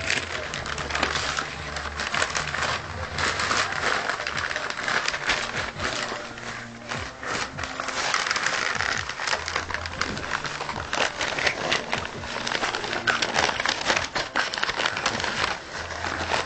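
Newspaper rustling and crinkling as a baby grabs, pulls and crumples the pages, in an irregular run of crackles.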